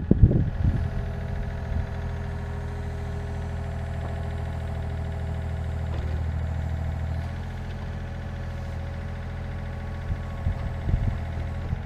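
Volvo ECR88 compact excavator's diesel engine running steadily. It eases down slightly about seven seconds in, and a few short knocks come near the end.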